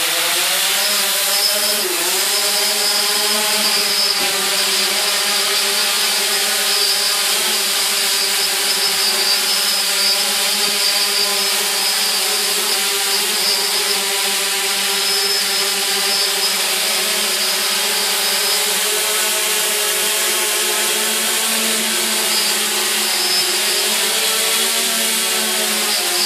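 Aibotix Aibot X6 V2 hexacopter drone's electric rotors spinning up at takeoff and then holding a hover, with a steady buzzing hum. The pitch rises over the first two seconds and then stays level, wavering slightly.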